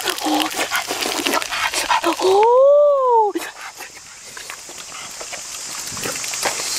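Crackling and sizzling of food cooking on a hot stone slab over a wood fire, then, about two seconds in, a single loud whine that rises and falls in pitch over about a second, most like a dog whimpering.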